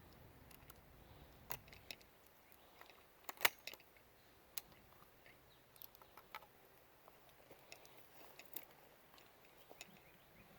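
Faint scattered clicks and knocks of a .410 shotgun being handled while it is readied to shoot, the sharpest click about three and a half seconds in.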